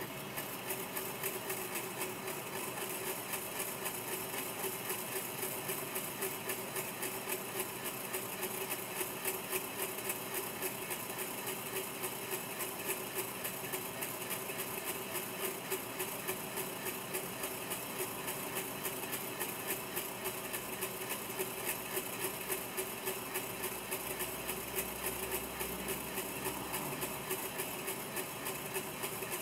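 A homopolar motor running: a copper wire spins around a C battery standing on neodymium magnets, its ends brushing the magnets on every turn in a fast, even rattle.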